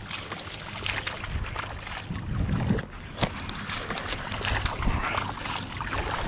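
Water moving around a kayak hull with wind on the microphone, scattered clicks and knocks and a sharp click about three seconds in, and a hooked fish splashing at the surface near the end.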